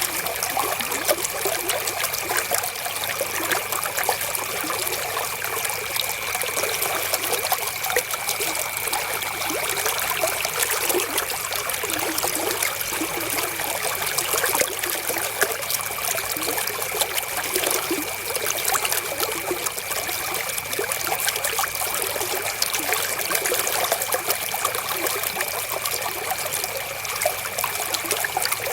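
Flowing river water, a steady trickling and babbling at an even level, with a faint steady high tone underneath.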